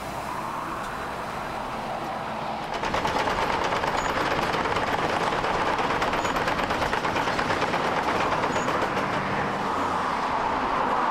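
Road Twister 2000 concrete fine-milling machine at work on a concrete road surface: engine noise with a fast, even rattle of the cutting tools on the concrete, coming in suddenly louder about three seconds in.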